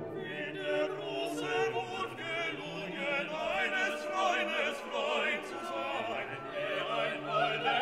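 Background music: a classical piece with operatic singing, the voice wavering in a wide vibrato.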